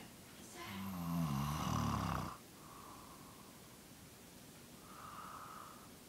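Elderly woman snoring in her sleep: one loud snore that wavers in pitch, lasting under two seconds and cutting off suddenly, then two softer breathy snores.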